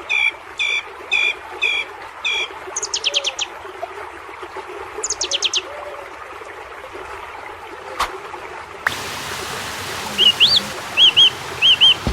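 Several birds calling: evenly repeated calls about twice a second, then short rapid trills. About two-thirds of the way in, the background changes to a steadier noise, with short rising-and-falling chirps near the end.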